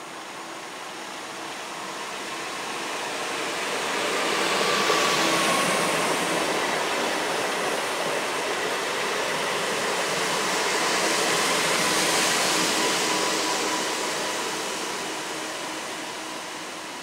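Newag Impuls 36WEa electric multiple unit passing close by on the tracks. The rolling noise swells, peaks about five seconds in and again about twelve seconds in, then fades as the train moves away.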